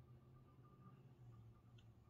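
Near silence: room tone with a steady low hum and one faint click near the end.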